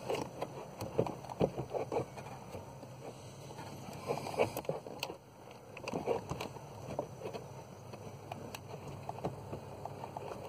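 Irregular light knocks, clicks and rustling of a car's HVAC blower motor being handled and worked into its housing under the dashboard.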